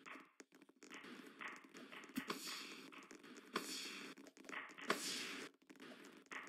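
Volleyball being struck during a rally: three sharp smacks about a second and a half apart, each ringing briefly in the gym.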